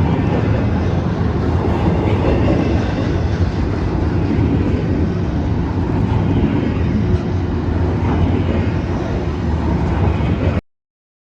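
A train running by, with a loud, steady rumble that cuts off abruptly about ten and a half seconds in.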